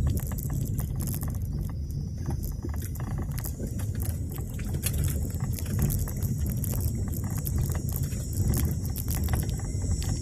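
Car driving over a rutted dirt track, heard from inside: a steady low rumble with frequent small knocks and rattles from the bumps.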